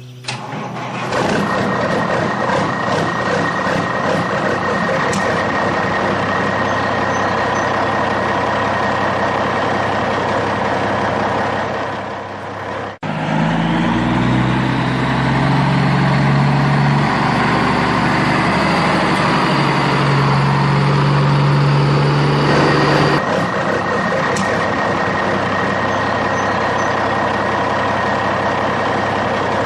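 Steady vehicle-like mechanical running noise with a constant high tone. About thirteen seconds in it cuts abruptly to a deeper engine-like sound with a slowly rising whine, then switches back to the first sound about ten seconds later.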